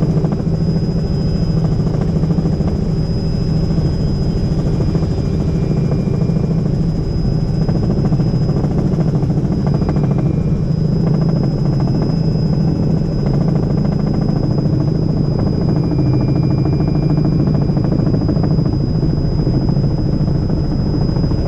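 Robinson R66 helicopter in flight: its turbine engine and rotor run steadily, a dense low drone with a thin, steady high whine over it.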